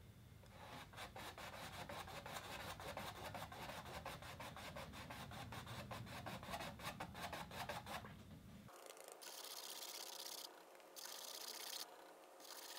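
Flat bristle paintbrush scrubbing oil paint back and forth on a canvas: a fast, even run of soft scratchy strokes. About nine seconds in the strokes stop, leaving only faint, broken hiss.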